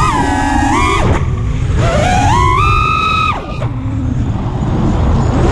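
A 5-inch FPV quadcopter's brushless motors (T-Motor Velox V2 2306) spinning Dalprop Nepal propellers, heard from the onboard GoPro as a whine whose pitch follows the throttle. The whine dips about a second in, climbs and holds a higher pitch from about two seconds in, and drops away sharply at about three and a half seconds. A steady rush of wind over the camera runs underneath.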